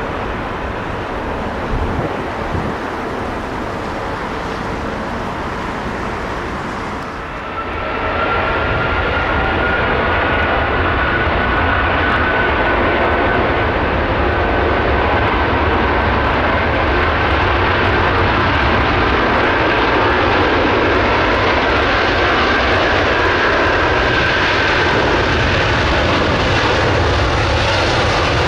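Airbus A330 twin jet engines spooling up for takeoff: after a lower background rumble, about seven seconds in the engine sound becomes loud and full, with a high whine that slowly rises in pitch over a deep rumble as the aircraft starts its takeoff roll.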